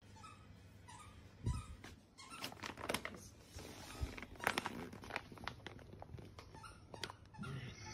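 Crinkling and rustling of an Orijen Six Fish dog food bag being handled, with faint scattered crackles and a soft thump.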